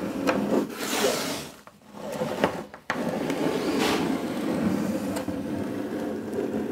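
Pencil scratching along the foot of a timber stair step while a scribe line is marked to the uneven floor. It comes in strokes: one in the first second and a half, a short pause with a brief scrape, then one long continuous stroke from about three seconds in.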